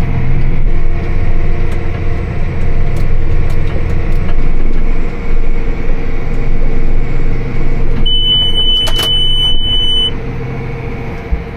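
Tractor engine running steadily while pulling a round hay baler. About eight seconds in, a high, steady electronic beep sounds for about two seconds, the kind of alarm a baler monitor gives.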